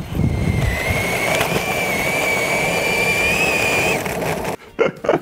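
A cordless drill driving a home-made scooter, its motor whining at a steady high pitch over a rumbling noise. It stops about four seconds in, followed by a few short knocks.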